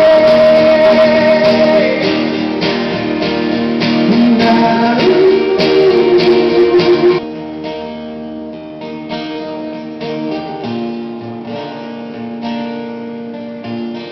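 Two acoustic guitars strumming a slow song, with a man's voice holding a wavering sung note over them for the first couple of seconds. About seven seconds in, the guitars drop to a softer, quieter passage.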